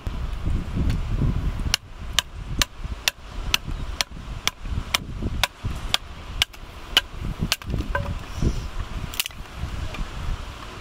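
Small hatchet striking wood while splitting kindling on a chopping block: a run of a dozen or so sharp knocks at about two a second, then one more near the end. Wind rumbles on the microphone underneath.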